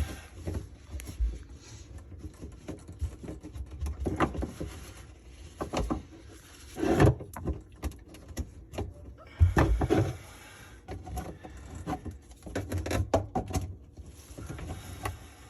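Irregular knocks, clicks and rattles of plastic drain parts and P-trap being handled and cleaned under a sink, with louder knocks about seven and ten seconds in.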